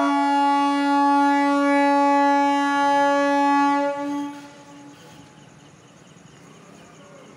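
Train horn sounding one long, steady blast of several tones together, cutting off about four seconds in. After it, the fainter noise of the coaches rolling past.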